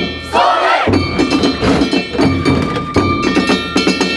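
Festival percussion of rapidly struck, ringing metal gongs or bells over a beating drum, accompanying a boat float being spun by its haulers. A group of voices shouts briefly about half a second in.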